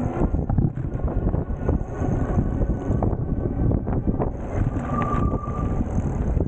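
Wind buffeting the microphone, with road and tyre noise from a moving electric bike, and a brief steady whine about five seconds in.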